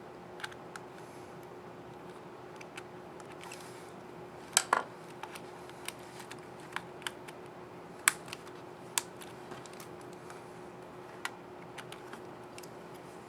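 Small sharp plastic clicks and taps of a laptop keycap and its scissor mechanism being handled and pressed into place, scattered irregularly. The loudest is a quick double click about four and a half seconds in. A faint steady hum runs underneath.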